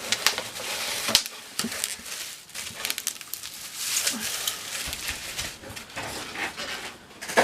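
Packing peanuts, foam and bubble wrap rustling and crackling in a cardboard shipping box as a book is pulled out, with irregular sharp clicks and knocks.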